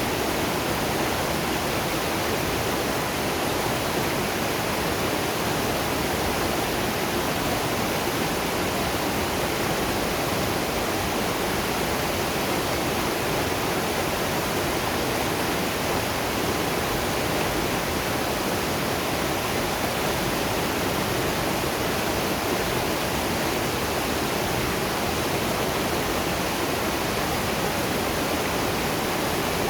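Waterfall and river water rushing, a steady unbroken noise that does not change.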